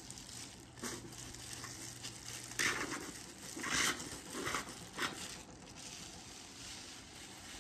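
Disposable plastic gloves crinkling and rustling as the hands handle a hair-dye applicator bottle and work dye into the hair, in several short bursts of rustle.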